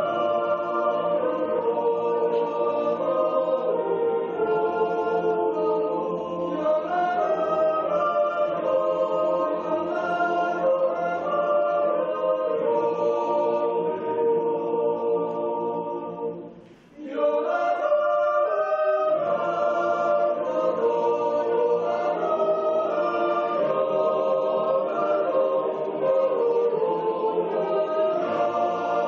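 Swiss yodel choir of mostly men's voices singing a Jodellied a cappella in sustained harmony. The singing breaks off briefly about sixteen seconds in, then the next phrase starts.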